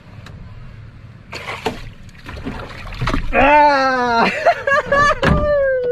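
A brief splash as a hooked needlefish is hauled out of the water on a handline, followed by a man's loud, long, drawn-out wordless calls that slide down in pitch as he lands it.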